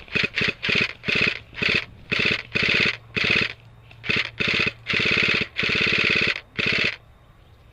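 Airsoft electric gun firing full-auto in a rapid string of about fourteen short bursts, the later bursts longer. The firing stops about a second before the end.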